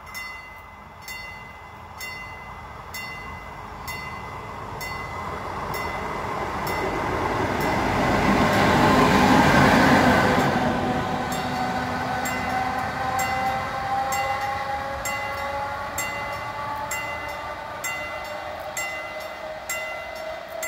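Croatian Railways electric locomotive passing close by. The noise of its wheels on the rails swells to its loudest about halfway through, then eases as it draws away, leaving a whine that slowly rises in pitch. Throughout, a level-crossing warning bell strikes about once a second.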